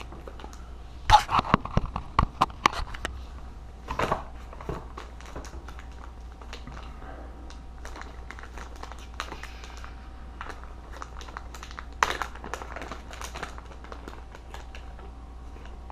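Plastic lure packaging being opened and handled: irregular crinkling and sharp clicks of stiff plastic, bunched in a few flurries about a second in, around four seconds and near twelve seconds, over a faint steady hum.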